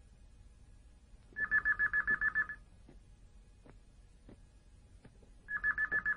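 Telephone ringing with an electronic trilling ring of about eight rapid pulses a second, heard as two rings about four seconds apart, with a few faint knocks between them.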